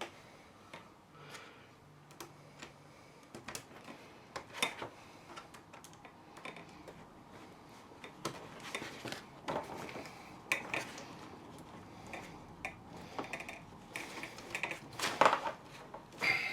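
Irregular clicks, taps and scrapes of hard parts and tools as pieces are prised off a jammed telescopic suitcase handle, with the loudest knocks near the end.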